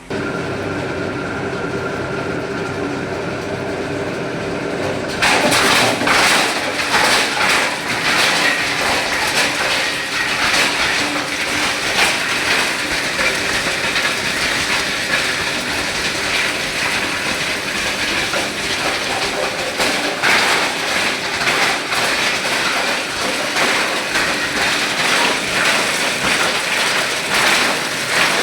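Plastic scrap grinder running: first a steady motor hum with a few held tones, then about five seconds in, plastic is fed to the cutters and it grinds with a loud, dense crunching clatter that carries on.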